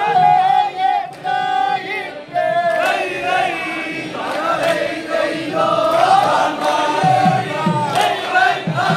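A large group of men singing a vanchipattu (Kerala boat song) together, loud, in held chant-like lines broken by short pauses.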